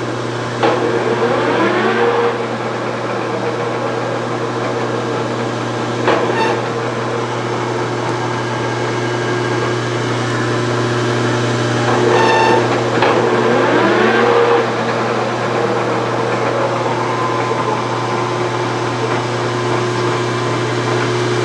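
A 1966 LeBlond tool-and-die maker's lathe running under power, with a steady motor and gear hum and several steady tones. Twice, once about half a second in and again about twelve seconds in, a tone sweeps upward.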